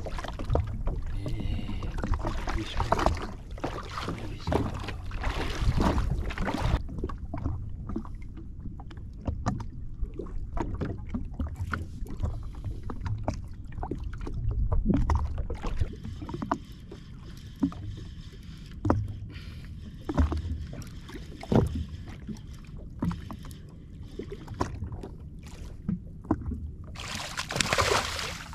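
Small waves lapping and slapping against the hull of a drifting jet ski, with a low rumble and scattered knocks and clicks. Near the end comes a loud splashing as a hooked fish breaks the surface beside the ski.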